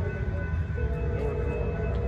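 Approaching Amtrak San Joaquins passenger train, a steady low rumble, with its horn chord sounding. One blast ends at the start and a second long blast begins about three quarters of a second in.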